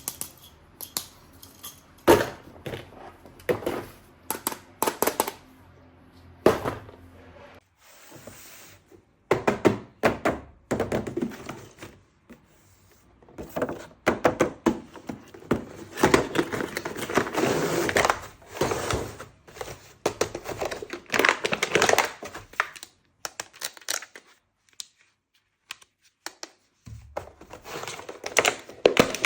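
Hands handling a toy gun and its packaging: irregular plastic knocks and clicks mixed with rustling and crinkling, in uneven bursts with brief quiet pauses.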